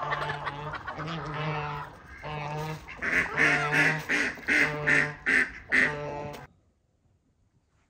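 Domestic waterfowl calling: a run of loud repeated calls, longer at first, then short and quick, about three a second, cut off suddenly near the end.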